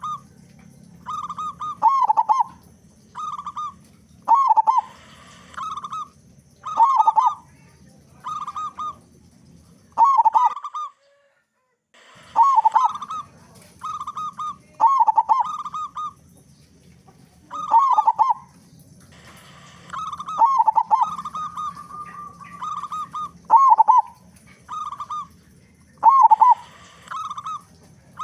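A local-type zebra dove (perkutut) cooing over and over in full song. Each phrase is a few short notes followed by a falling, rolled coo, repeated every two to three seconds, with one brief break a little before halfway.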